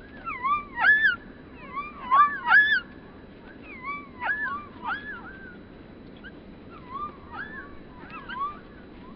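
A bird calling in bursts of short, slurred whistled notes that dip and rise in pitch, in four clusters.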